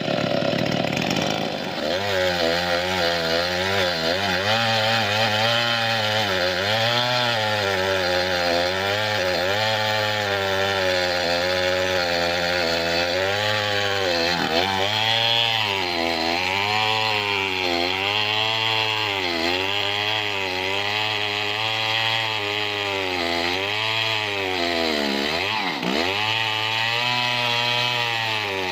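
Chainsaw cutting acacia wood under load. It runs high for about two seconds, then bogs into the cut, its pitch dipping and recovering about once a second, with one deeper dip near the end.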